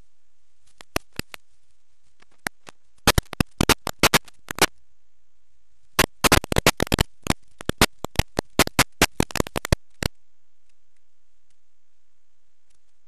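Crackling static from a Hauppauge HVR-955Q analog TV tuner receiving a weak station with no audio: clusters of sharp clicks over a faint steady hiss, thickest where the signal breaks up into snow.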